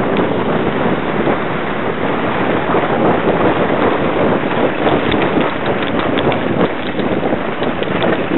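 Wind rushing over the microphone of a camera riding a fast sledge down a snow run, with the sledge scraping over the snow. Small clicks and knocks become more frequent about halfway through.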